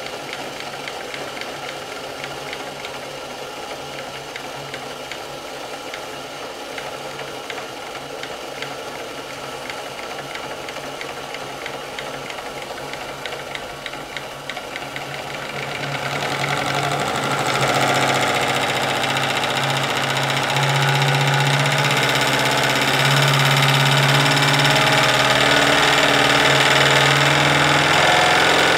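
Homemade twin-cylinder, double-acting brass steam engine running unloaded on live steam, throttled back to a slow speed with a rapid light ticking of its strokes. About halfway in it gets louder and busier as it is opened up to run faster.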